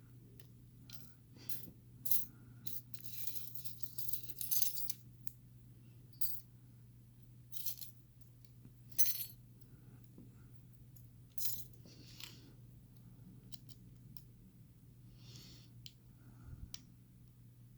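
Small metal lock parts clicking and clinking irregularly as a picked lock is handled and taken apart, over a steady low hum.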